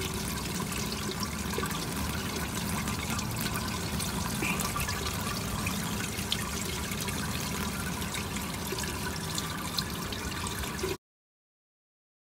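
Mucky brown heating-system water pouring steadily from a copper drain pipe and splashing onto a plastic drain gully grate as the central heating system is drained down. It cuts off suddenly near the end.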